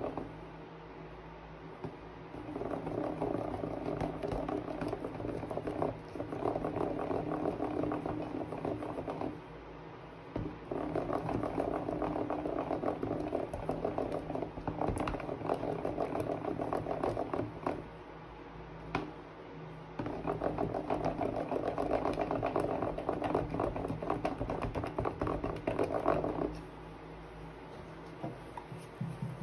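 Plastic spoon stirring a thick, wet slime mixture in a plastic tub, making a dense run of rapid small clicks. It comes in four spells of several seconds each, with short pauses between.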